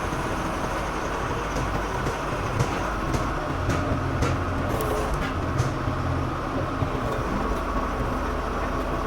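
Heavy diesel machinery, most likely the excavator itself, running steadily, with a few sharp metallic clinks scattered through the first half.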